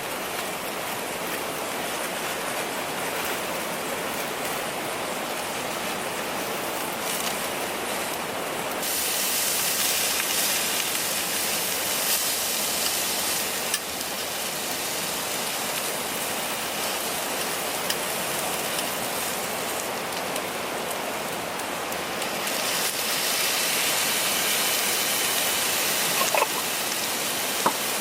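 Steady rushing water noise, growing brighter about nine seconds in and shifting again near the end, with a few faint clicks.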